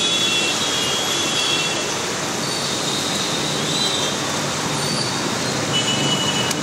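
Steady road traffic on a waterlogged street: motorbike and auto-rickshaw engines and tyres running through standing floodwater.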